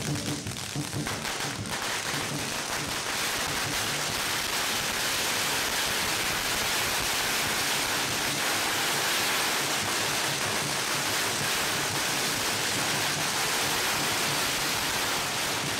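Firecrackers going off in a dense, continuous crackle of rapid bangs that holds at a steady loudness, too fast for single reports to be counted.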